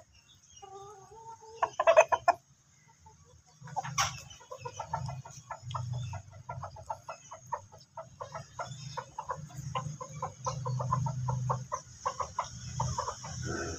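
Flock of desi chickens clucking as they peck at grain, with a louder call about two seconds in and a busy run of short clucks and taps from about four seconds on.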